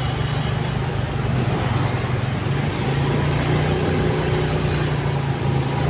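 A motorcycle engine running steadily while the bike moves slowly through dense traffic, with road and traffic noise around it.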